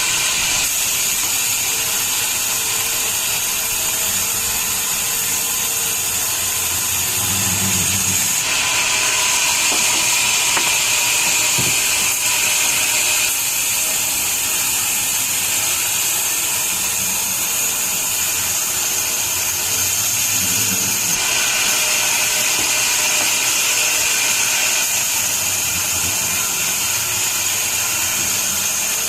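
Sawmill machinery running: a loud, steady, high-pitched hissing whine that shifts in character every several seconds.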